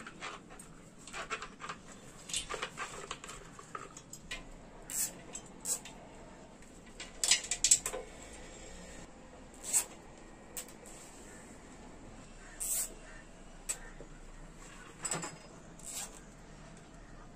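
Scattered small clicks, taps and rustles of hands working on a moped's wiring: handling wires, pushing connectors together and fitting plastic cable ties. A cluster of sharper clicks comes about halfway through.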